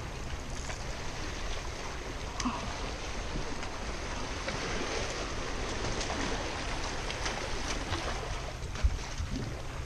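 Sea waves washing among the boulders of a rock breakwater, a steady rush of water with a low rumble underneath. A few light clicks and one sharp thump near the end.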